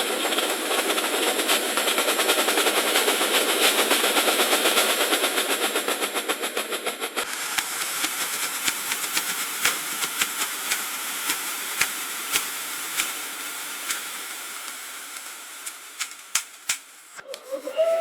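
Restaurant kitchen ambience: a loud steady hiss for about the first seven seconds. Then a softer hiss with many sharp clinks and clatters of kitchen utensils and dishes, dropping away suddenly near the end.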